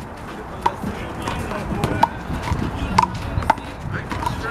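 Big blue rubber handball slapped by hand and smacking the wall and court during a rally: four sharp slaps, unevenly spaced, each with a short ping.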